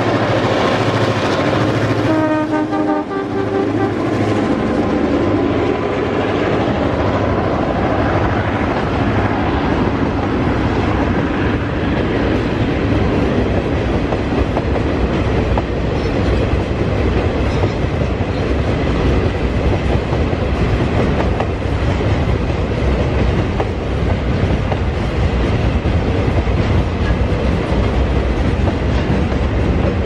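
Two B-class diesel-electric locomotives pass with a horn note and engine drone; the horn's pitch drops as they go by, and it stops about three seconds in. The long rake of loaded quarry hopper wagons then rolls past, with wheels rumbling and clattering over the rail joints.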